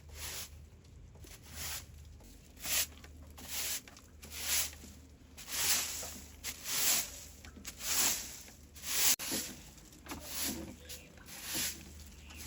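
A series of short rustling, scraping strokes, roughly one a second, over a faint low hum.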